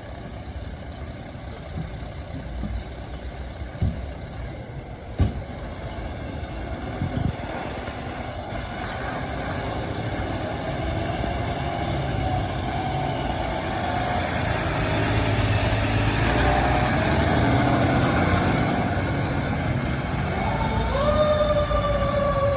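Fire truck engine running and growing louder as the rig gets under way, with a few sharp knocks in the first several seconds. Near the end a siren starts, its pitch jumping up and then slowly falling.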